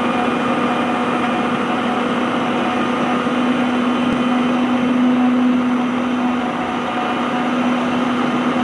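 Electric mixer grinder running steadily with a small steel chutney jar, grinding mint leaves with garlic, ginger and green chillies into a thick paste. A constant motor hum sits over a steady rushing whirr.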